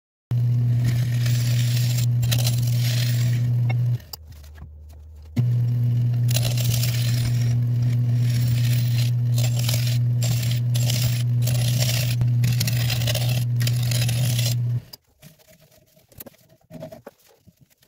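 Nova 3000 wood lathe running with a steady motor hum while a turning tool cuts inside a spinning acacia bowl, shavings scraping and hissing off the wood. The hum drops away briefly about four seconds in, and near the end the lathe stops, leaving only faint handling sounds.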